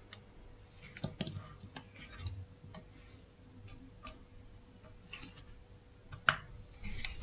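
Small, irregular metal clicks and taps of steel tweezers and a hand tool against a watch movement's crown wheel as it is fitted, with one sharper click about six seconds in.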